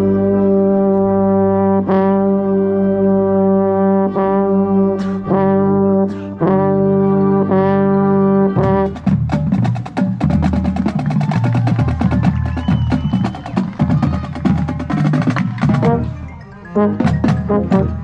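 Marching band brass and percussion playing: loud sustained brass chords, re-attacked every second or two, for about the first nine seconds, then a busier passage with fast percussion strokes under moving brass lines. The sound drops briefly near the end before loud accented hits come back in.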